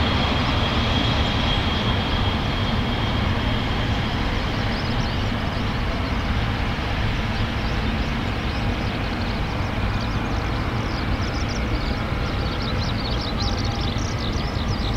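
Boeing 787-8 jet engines, Rolls-Royce Trent 1000s, running at idle on the ground: a steady rumble and hiss. A high whine fades away over the first few seconds.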